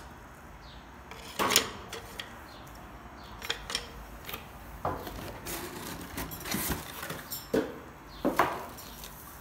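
Handling noise: bamboo kitchen tools knocked and set down in a cardboard box, with cardboard scraping and light rustling of plastic wrap. Several separate sharp knocks, the loudest about a second and a half in.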